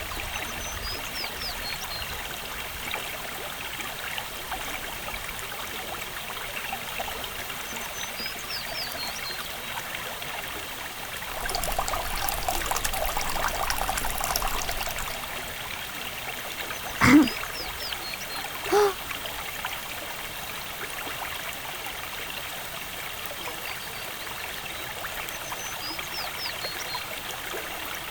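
Running water trickling steadily like a small stream, with a stretch of louder splashing about halfway. A few high short chirps come now and then, and two short loud pitched sounds about two-thirds of the way in, the first falling steeply in pitch.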